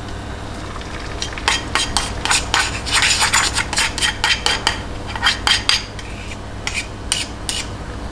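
Metal utensil beating eggs in a bowl: a fast run of sharp clicks against the bowl, about five a second, pausing briefly near the end before a few more strokes.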